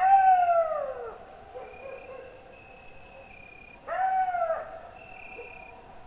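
A dog howling: two short howls about four seconds apart, the first sliding down in pitch and the second rising then falling. Faint high chirping of insects carries on underneath.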